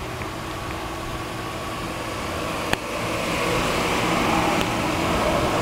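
Steady low hum of the 2008 Chevy Avalanche idling, with a fan-like hiss. A single sharp click comes about halfway through, after which the hiss grows louder.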